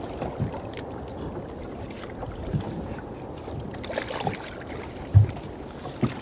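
Steady low rush of wind and sea with scattered knocks and one heavy thump about five seconds in, as a fishing net is hauled in by hand.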